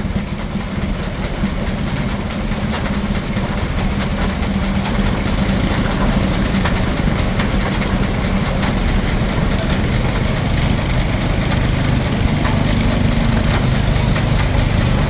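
Steam-engine-driven Frick sawmill running: a steady mechanical din with a low hum that grows louder over the first few seconds.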